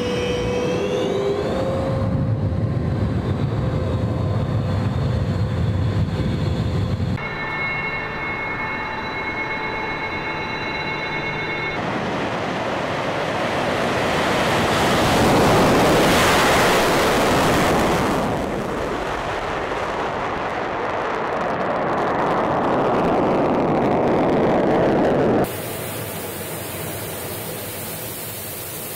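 Su-30SM fighter's twin AL-31FP turbofans: a high turbine whine with a low rumble as the jet taxis at low power. Then the engines rise to a loud rush that swells and fades as the jet takes off past. Near the end comes a steady hiss of airflow inside the cockpit in flight.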